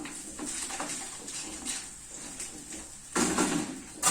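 Kitchen handling sounds: light clicks and clatter of utensils and a pan over a faint steady hiss, with a louder scraping, rustling burst about three seconds in.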